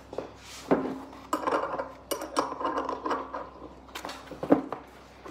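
A three-jaw bearing puller being worked to draw a bearing off a raw water pump shaft: a series of metal clinks and knocks, several sharp ones scattered through.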